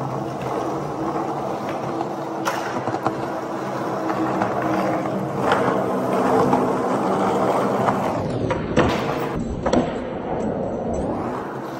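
Skateboard wheels rolling on a smooth concrete parking-garage floor, with several sharp clacks of the board along the way.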